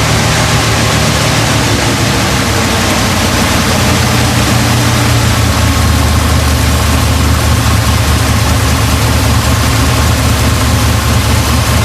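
1970 Ford F100's engine on a Holley carburetor, idling steadily, with a slight change in its note about four seconds in.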